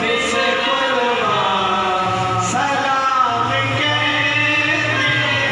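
Male voices chanting a Sufi devotional chant, long held notes that glide slowly up and down.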